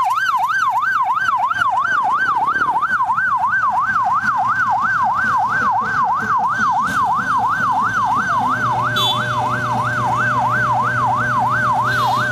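Vehicle siren in a fast yelp, its pitch sweeping up and down about three times a second without a break. From about eight seconds in, a low steady drone joins beneath it.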